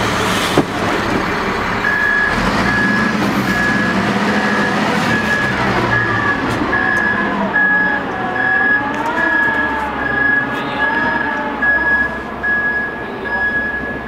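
XIAJIN XJ976H block-handler wheel loader backing up, its diesel engine running while its reversing alarm beeps about twice a second from about two seconds in. A single sharp knock sounds about half a second in.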